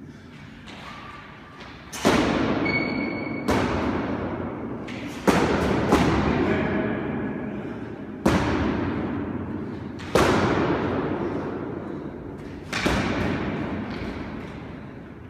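Practice swords clashing and striking in sparring, about seven sharp knocks, each ringing out for a second or two in the echoing walled court. Short squeaks of shoes on the hardwood floor come between them.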